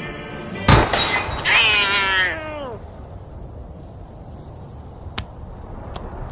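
A gunshot sound effect, then a cat yowling, one long screech falling in pitch over about a second.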